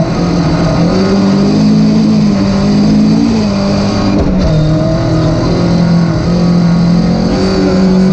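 Rally car engine heard from inside the cockpit under hard acceleration, its pitch climbing, dropping at a gear change about three seconds in, and climbing again near the end. Tyres on the dirt road add a constant rough rumble underneath.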